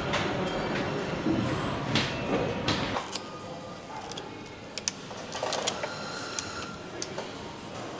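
Factory assembly-line machinery and an industrial robot arm running with a dense mechanical whir and two short high whines. It cuts off about three seconds in to quieter hand-assembly sounds: scattered small clicks and light knocks of parts and connectors being handled on an electric-car battery pack.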